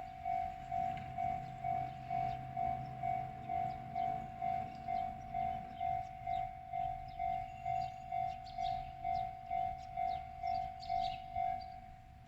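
Japanese railway level crossing's electronic warning bell ringing in an even beat of about two strokes a second, then stopping shortly before the end. A low rumble runs underneath during the first half.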